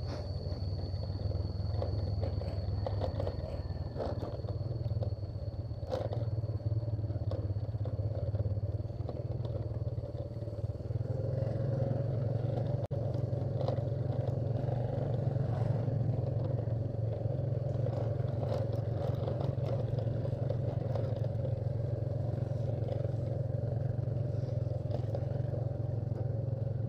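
Motorcycle engine running steadily while riding, picking up and getting louder about ten seconds in.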